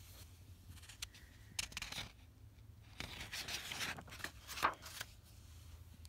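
Paper rustling as the page of a picture book is turned, a short rustle about one and a half seconds in and a longer one from about three seconds in.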